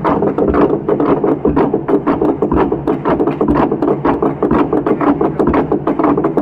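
Traditional long drum beaten in a steady rhythm: a deep stroke about once a second with quicker strikes in between.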